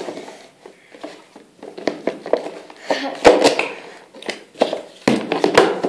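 Lid of a clear plastic storage box being pressed down and forced shut over a box crammed with grooming brushes: irregular plastic knocks, clicks and scraping. The loudest clusters come about three seconds in and again near the end.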